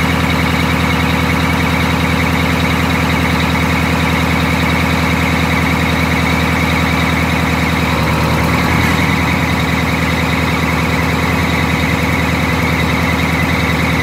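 Wanderlodge bus engine idling steadily, with a steady high squeal from a very squeaky alternator belt over it.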